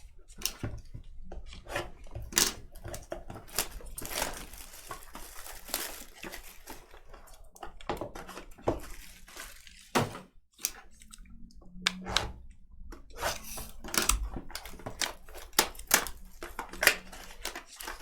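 Trading-card boxes and packaging being handled and opened by hand: repeated tearing, crinkling and rustling with many sharp clicks and light knocks of cardboard and card holders.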